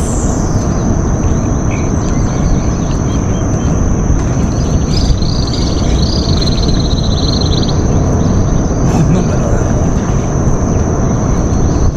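A bird's rapid trilling call from about five to eight seconds in, over a steady high-pitched whine and a loud, constant low rumble.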